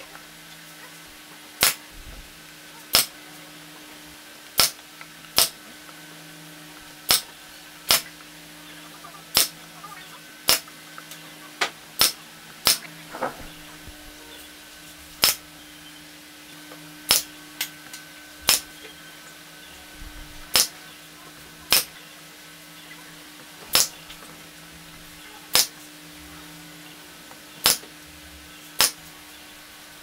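Nail gun firing about twenty sharp shots, one every second or two at uneven intervals, as roof slats are fastened onto a wooden birdhouse. A steady low hum runs underneath.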